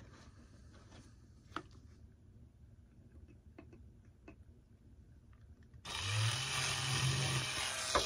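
Cordless drill spinning up and drilling into the model's clear plastic canopy for about two seconds near the end, its motor hum steadying after a quick rise. Before it, only a few faint clicks of handling.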